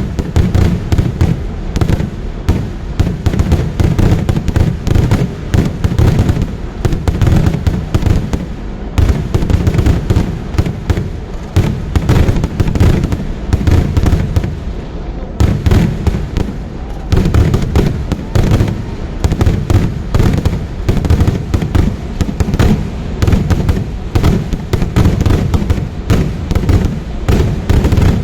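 Vedikettu fireworks barrage: a continuous rapid run of loud firecracker explosions, bang after bang with hardly a gap, the deep booms strongest.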